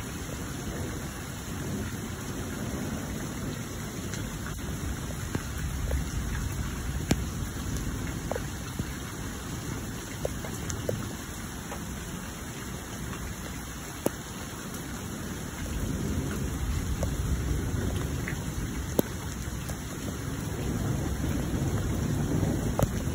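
Steady rain falling, with a few sharp drop taps landing close by, under low rolling thunder that swells about two-thirds of the way through and again near the end.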